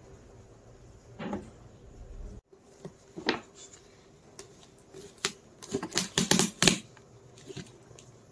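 Stiff white paper and clear packing tape being handled and pressed into a cardboard box. A short rustle comes about a second in. After that come scattered sharp crackles and taps, which bunch into a quick run of crackling about six seconds in.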